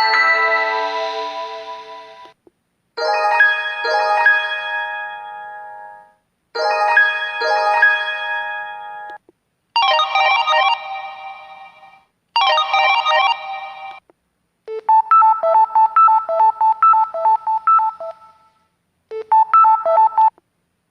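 Samsung SGH-M620 mobile phone ringtones: short melodies, each phrase cutting off and starting again after a brief silence, the tune changing every few seconds.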